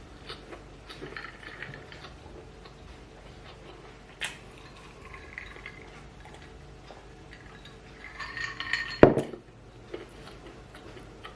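Cutlery clinking and scraping against a plate during eating: scattered light clicks, a denser run of clinks near the end and one sharp knock about nine seconds in.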